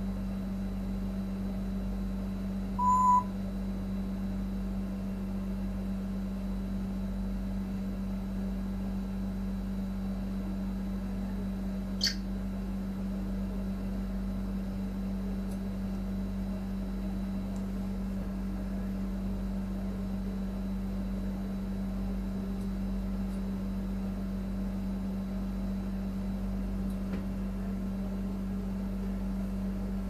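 Congo African grey parrot giving one short, clear whistle about three seconds in, over a steady low hum. A single sharp click comes near the middle.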